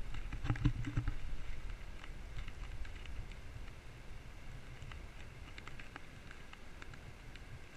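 River water flowing and lapping, with wind rumbling on the microphone and scattered light ticks and patters of water. A brief louder thump comes about half a second in.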